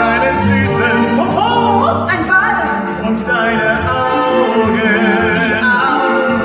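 Musical-theatre singing over a live orchestra, the voice sliding up about a second in and holding notes with a wide vibrato.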